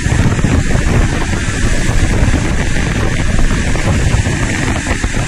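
Steady rushing roar of river water pouring over a dam spillway, with wind buffeting the microphone.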